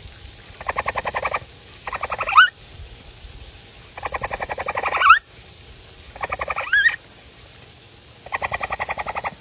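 Capybara squealing in fear. About four bouts of rapid, chattering pulsed calls, several of them ending in a sharp upward-sweeping squeak, with short pauses between.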